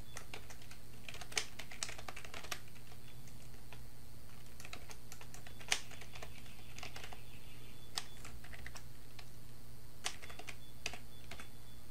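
Typing on a computer keyboard: scattered, irregular key clicks over a low steady hum.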